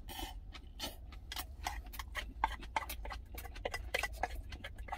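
Wooden chopsticks clicking and scraping against a stainless-steel lunch container: a quick irregular run of small sharp ticks, after a brief slurp from the container at the start. A low steady hum runs underneath.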